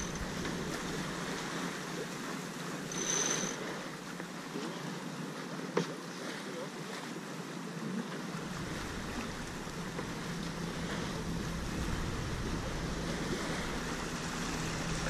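Wind and water rushing past a J/111 racing sailboat under way, heard from on board, with wind buffeting the microphone. There is a brief louder rush about three seconds in and a single sharp click a little later.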